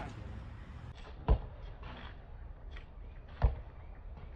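A basketball bouncing on an outdoor asphalt court: two single thuds, about two seconds apart.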